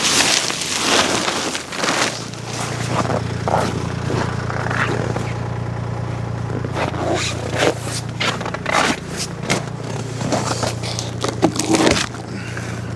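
A tractor engine idling steadily while it warms up, under repeated scraping and knocking. The loudest scrapes come at the start and again near the end.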